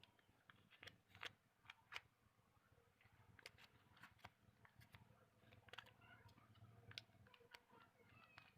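Near silence: faint, irregular clicks and ticks over a faint low hum.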